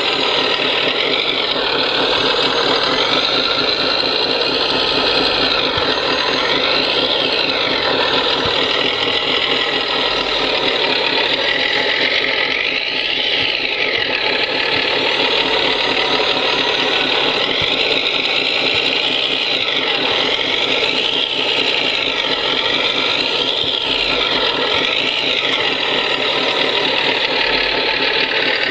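Electronic sound module of an RC CAT 963D track loader running a steady diesel-engine sound. Over it the model's electric drive whines, dipping and rising in pitch several times as the loader turns on its tracks.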